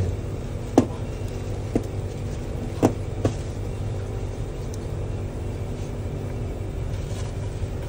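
A steady low hum, with four sharp knocks and clinks in the first few seconds as parts are handled inside a vacuum packing machine's housing.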